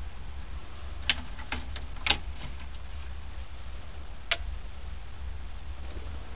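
Clicks from the dashboard controls of a 1967 Ford Mustang: a cluster of sharp clicks about a second in, then a single click just after four seconds as a hand works the AM/FM radio's knob, over a steady low hum.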